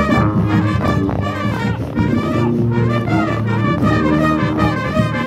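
A brass band playing a loud, lively tune, with a sousaphone right at the microphone carrying the low bass notes under the trumpets and trombones.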